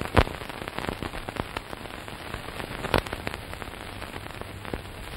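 Old-film crackle sound effect: a steady hiss scattered with random clicks and pops, with a louder pop just after the start and another about three seconds in.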